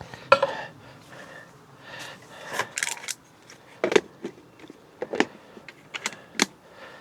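Scattered light clicks and knocks from handling cookware and food packaging while a casserole goes into a slow cooker, several separate taps over a few seconds.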